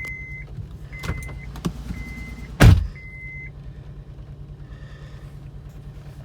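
Honda Pilot's warning chime beeping four times about a second apart as the ignition is switched on. About 2.7 s in there is a short loud burst as the 3.5-litre V6 starts, and then it idles steadily; the owner says it is still running rough with the check engine light on, from an oxygen-sensor fault and misfires.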